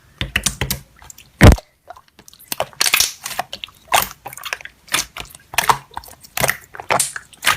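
Slime being squished and pressed by hand: a run of wet pops and crackling clicks, with one loud sharp pop about one and a half seconds in.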